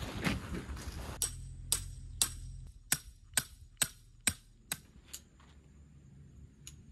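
A run of sharp, evenly spaced clicks, about two a second and ten in all, with one more near the end. They follow about a second of rushing noise that cuts off abruptly.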